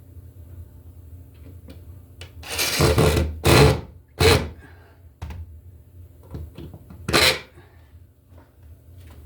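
Hand work on electrical cable and fittings: four short, loud scraping rubs, the first the longest, with a few small knocks between them.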